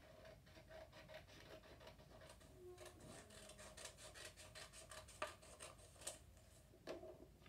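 Scissors snipping through a sheet of paper: a faint, quick run of short cuts, several a second, with a few sharper clicks near the end.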